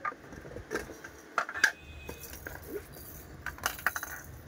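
Hard plastic toy pieces clicking and clacking against each other and the glass counter as they are handled. There are a couple of sharp clicks about a second and a half in, and a quick cluster more near the end.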